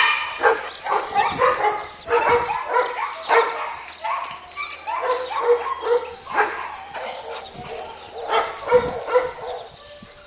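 Dogs barking and yipping in rapid, repeated short calls during rough-and-tumble play, growing sparser and quieter near the end.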